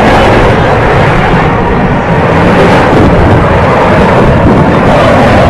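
Loud, steady jet engine noise from the Blue Angels' four F/A-18 Hornets flying in diamond formation.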